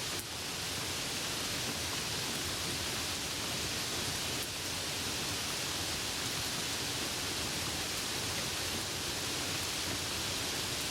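Steady heavy rain falling: a dense, even hiss of rainfall with a few faint drop ticks.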